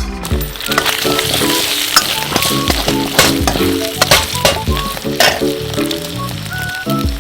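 Food sizzling as it fries in a hot iron wok, with the sharp clicks and scrapes of a spatula being stirred against the metal. Background music plays underneath.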